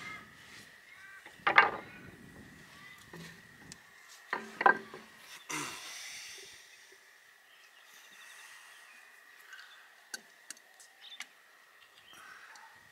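A few sharp knocks and clinks of hand tools on the engine: a loud one about a second and a half in, two more around four and a half and five and a half seconds, then lighter clicks near the end. A faint steady high tone runs underneath.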